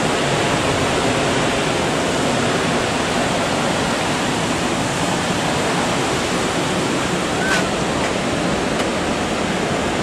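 Steady rushing of the Gooseberry River's waterfall and rapids, an even unbroken wash of water noise. A short faint high chirp sounds once about seven and a half seconds in.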